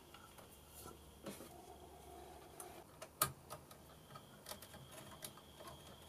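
Faint clicks and rustling of computer cables and plastic connectors being handled inside a PC case, with one sharper click about three seconds in.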